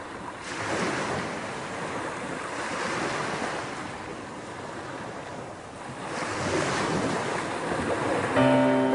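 Ocean surf washing onto a beach, swelling and ebbing as the waves break and draw back. Music comes in near the end.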